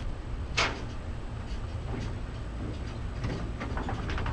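A wooden deck section being shifted on a flatbed trailer: one sharp knock about half a second in, then a few lighter knocks near the end, over a steady low rumble.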